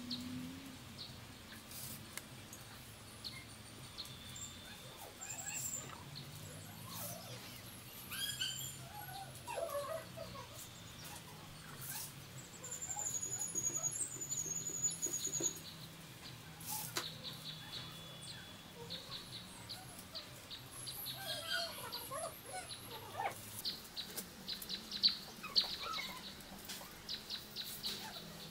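Small birds chirping, with a high trill near the middle, over the light clicks and rustles of dry palm-leaf strips being handled and woven; a faint low hum sits under it all.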